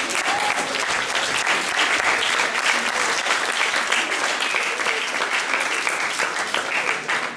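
Audience applauding: dense, steady clapping that falls away right at the end.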